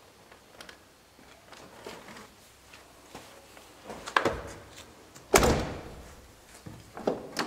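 Front door of a Mercedes-Benz W124 swung shut with a loud slam about five seconds in, after a lighter knock a second earlier. A few small clicks come before it and near the end.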